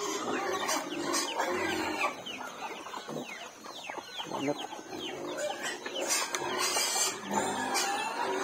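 Chickens clucking, with many short, falling high-pitched cheeps throughout.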